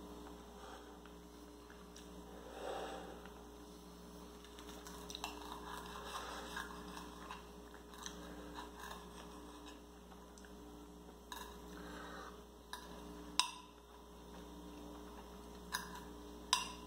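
Cutlery scraping and clicking on a plate as a serving of baked bread omelette is cut and picked up, with a few sharp clinks in the second half, over a faint steady hum.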